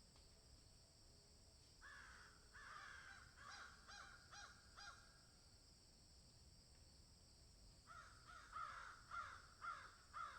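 Crows cawing in two bouts of rapid repeated caws: about six from two seconds in, then after a pause another run of about six, louder, near the end.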